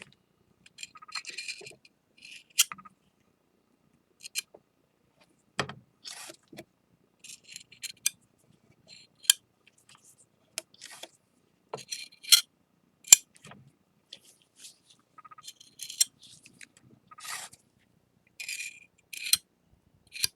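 Metal palette knife scraping and tapping against the broken edges of a ceramic piece as flour-and-lacquer paste is spread on. The short scrapes and sharp clicks come at irregular intervals.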